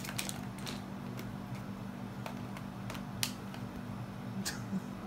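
Scattered light clicks and taps of plastic parrot toys being picked at by a green-winged macaw's beak, with two sharper clicks about three and four and a half seconds in, over a steady low hum.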